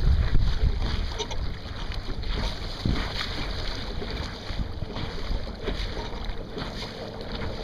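Wind buffeting the microphone and water splashing and rushing against the bow of a Sunfish sailboat moving under sail. The wind is loudest at the start and eases off after a second or so.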